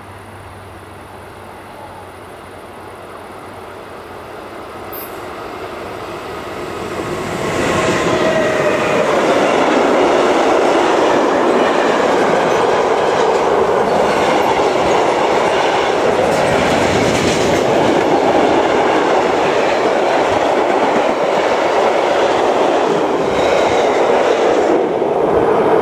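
Electric-hauled freight train approaching and then passing close by. It grows louder over the first seven seconds or so, then becomes a steady loud rumble and clatter of wagon wheels on the rails as the wagons roll past.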